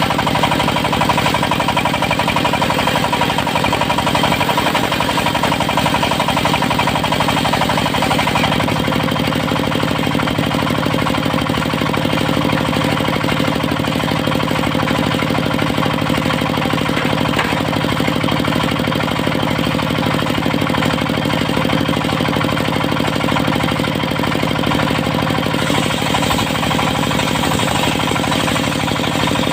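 Diesel-powered mobile circular sawmill running steadily, its engine and spinning saw blade making an even mechanical drone with a steady whine. About 26 seconds in, the high hiss grows a little.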